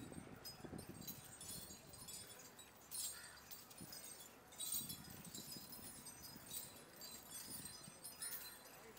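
Metal chains hanging on a walking Asian elephant jangling faintly, a clink every second or two as it steps.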